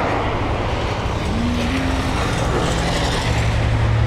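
A motor vehicle engine running amid a steady rushing road noise, its low hum growing stronger about three seconds in.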